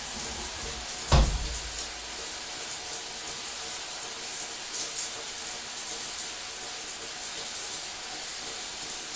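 Shower water spraying steadily and splashing on a tiled floor, with a single dull, low thump about a second in.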